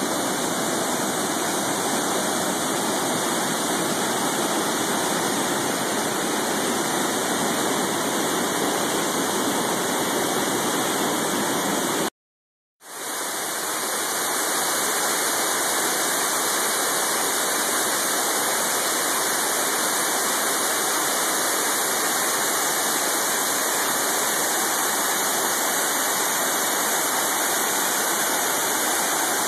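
Waterfall, a steady rush of falling water. It cuts out for about half a second some twelve seconds in, then comes back slightly less deep.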